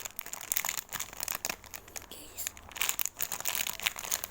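Packaging of a squishy toy crinkling and crackling in the hands as it is handled, in an irregular run of small crackles.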